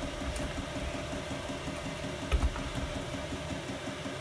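A steady, evenly pulsing machine sound, like an engine idling, runs underneath. A single short metal clunk comes about two and a half seconds in, as the aluminium camshaft holder is handled on a motorcycle cylinder head.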